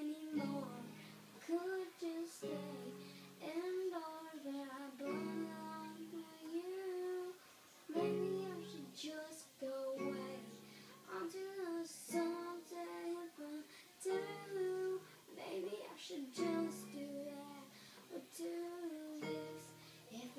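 A young girl singing a melody while playing chords on an electronic keyboard, a new low chord about every two seconds under her voice.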